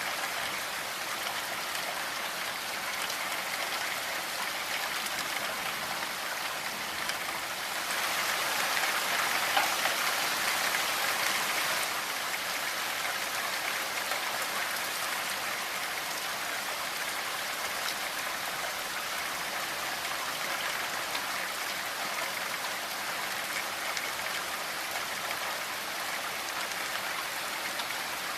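Steady rainfall, an even patter of drops that grows a little heavier for a few seconds about eight seconds in.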